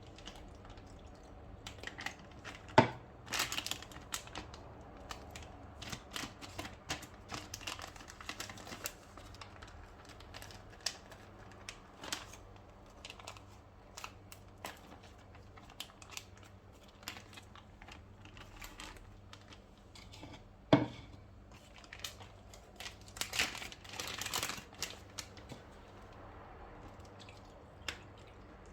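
Food-preparation handling sounds in a kitchen: many small clicks and taps with some crinkling and rustling, and two sharp knocks, one about three seconds in and one around twenty-one seconds.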